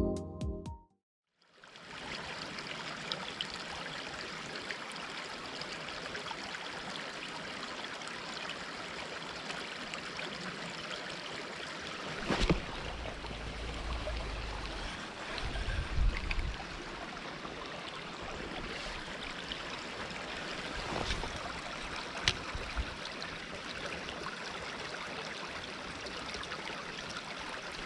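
Steady rush of flowing river water. A few low thumps and some faint clicks come over it about halfway through.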